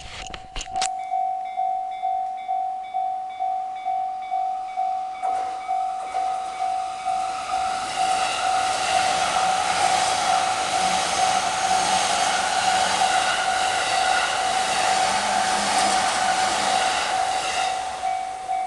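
Japanese railway level-crossing warning bell ringing, a steady repeated electronic ding about two strikes a second. About five seconds in a train approaches and passes through the crossing, loud for some ten seconds, then starts to fade near the end while the bell keeps ringing.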